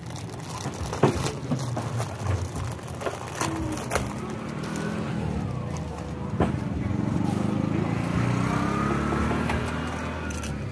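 A motor vehicle engine running past, its pitch rising and then falling over the second half. A few sharp taps and clicks from eggs and a plastic bag being handled at the table.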